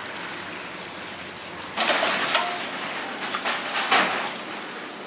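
Soaked soybeans being scooped with a metal saucepan in a plastic basin, with water sloshing and splashing over the beans. A steady wet hiss gives way to louder, uneven splashing and bean rattle from about two seconds in, easing off near the end.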